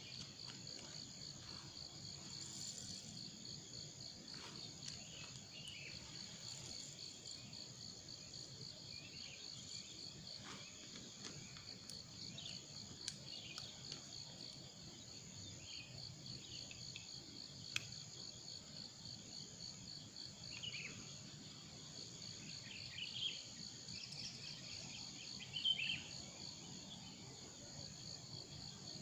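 Forest insects, cricket-like, trilling steadily in a fast, even pulse, with a few short chirps and sharp clicks scattered over it.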